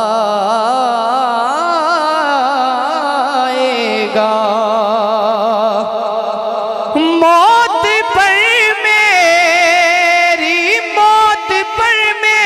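Male naat reciter singing long drawn-out melismatic notes into a microphone, the voice wavering up and down in pitch while holding each vowel. About seven seconds in he jumps to a higher, louder phrase.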